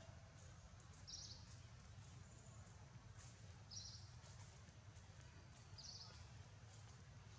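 Faint outdoor ambience: a bird gives a short, high chirping call three times, two to three seconds apart, over a low steady background hum.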